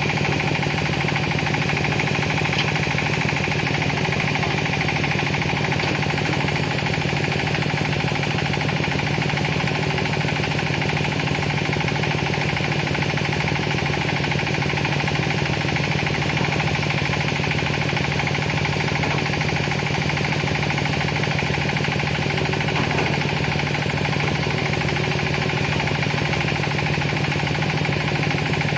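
Hitachi ZX200 excavator's diesel engine running steadily under work, a constant low drone with a fast even pulse.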